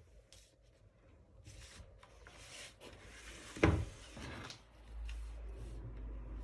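Handling of a vinyl record's cardboard packaging: rubbing and sliding noises with one sharp knock about three and a half seconds in, then a low rumble near the end.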